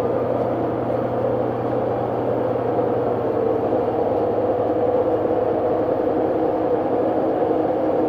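Washing machine running loudly: a steady mechanical hum and whir with a constant whining tone. A second, lower tone joins about five seconds in.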